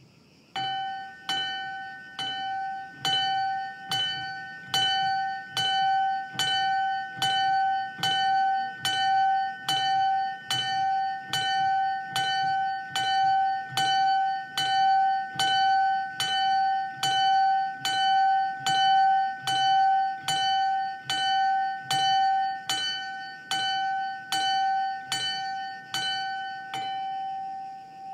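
A single small bronze bell, cast by the Clocchiatti foundry of Colugna in 1992 and tuned to a slightly sharp F#5, tolled by regular single clapper strikes a little more often than once a second, each strike ringing on into the next. It is struck rather than swung as a precaution, because the wooden isolator block in its mounting is in poor condition.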